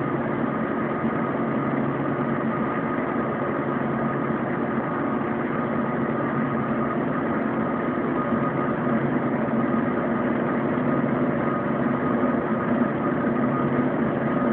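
Bus engine running steadily, heard from inside the passenger cabin: a constant drone with a faint high whine over it.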